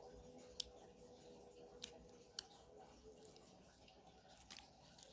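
Slime being handled: a few faint, sharp pops and clicks, the loudest a little under two seconds in.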